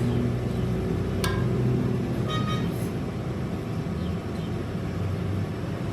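Lathe motor and spindle running steadily with a low hum, with a single sharp metallic click about a second in.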